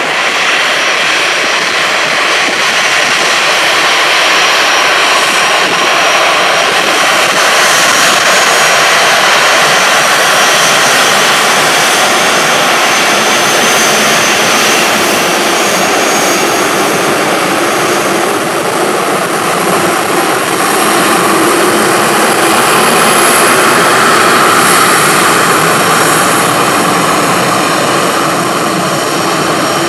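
Boeing 737-800 twin CFM56-7B turbofan engines running at taxi power as the jet taxis by: a steady jet rumble with a high whine over it. The sound grows a little louder about two-thirds of the way through as the aircraft turns.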